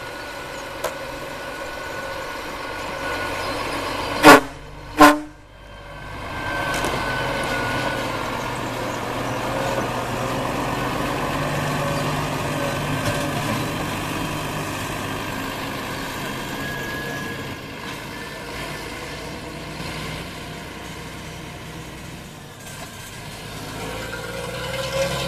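Loaded Scania truck's diesel engine running, with two short, very loud air-horn blasts about four seconds in. After them the engine pulls harder and runs on steadily as the truck moves off.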